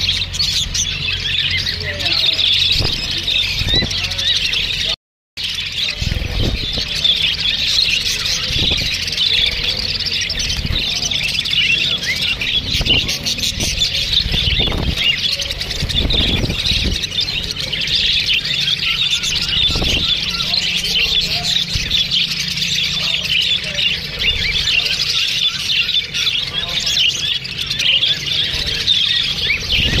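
A flock of budgerigars chattering and warbling nonstop, many high chirps and squawks overlapping into one steady din. The sound cuts out completely for a moment about five seconds in.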